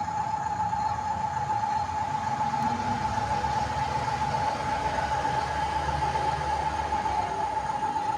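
Model RC bulldozer running, with a steady high whine from its motors and drive over a rough rumbling, scraping noise from the tracks and blade in the dirt.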